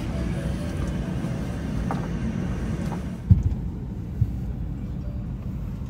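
Steady low rumble of an Airbus A321's cabin parked at the gate for boarding, with two dull thumps about three and four seconds in.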